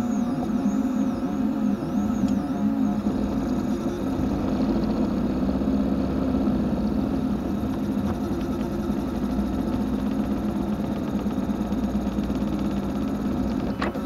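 FDM 3D printer running a print: its stepper motors whine with a pitch that rises and falls over and over as the nozzle traces the circular walls of a ring, over a steady mechanical hum.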